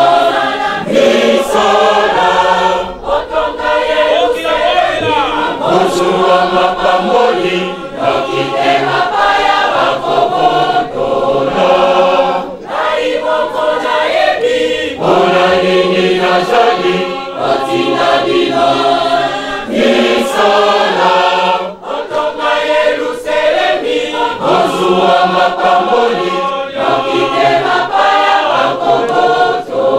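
A large church choir singing a hymn, in sung phrases with short breaks between them.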